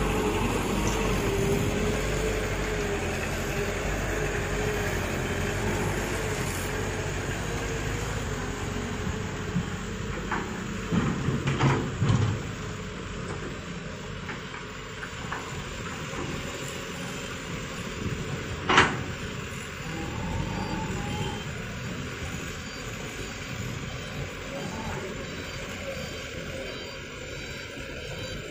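Hitachi hydraulic excavator's diesel engine running under load, its note wavering as the machine works and slowly easing off. About eleven seconds in comes a burst of knocks and thuds as a bucketload of soil drops into the steel bed of the dump truck, and a single sharp knock follows later.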